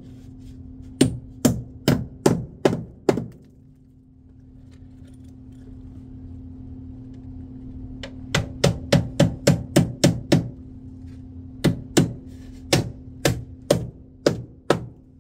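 Hammer driving nails overhead to pin sheet-metal flashing up to the framing: quick runs of sharp strikes, several a second, with a pause of a few seconds after the first run. A steady low hum runs underneath.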